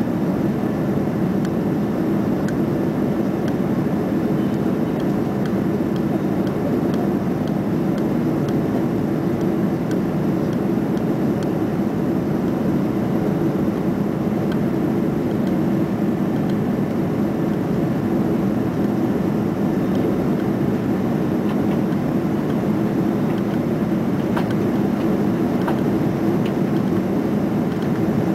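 Cabin noise of an Airbus A330-300 climbing after takeoff: the jet engines and rushing air make a steady, unchanging low roar.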